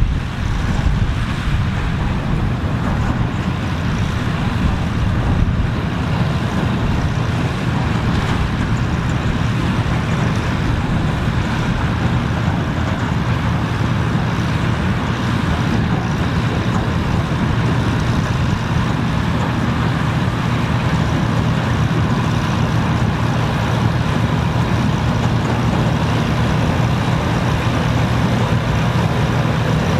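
Old farm machinery's engine running steadily under a continuous mechanical rush, with no change in speed.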